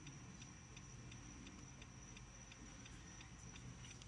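Faint, even ticking of a car's hazard-light flasher, about three ticks a second, over a faint steady high-pitched whine.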